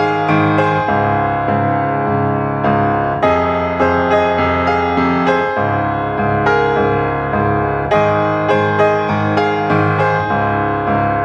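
Background piano music: a gentle melody of struck notes, played at an even pace.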